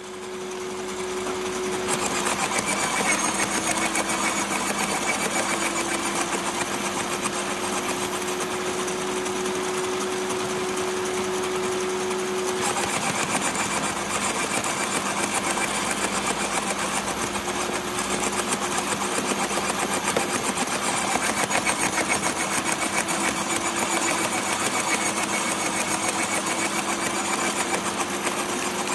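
Electric roller-type garden shredder (Parkside PWH 2800 B2) running continuously, with a steady motor hum over a dense rattle. The hum sags in pitch twice, about two seconds in and again past the middle, and slowly recovers each time.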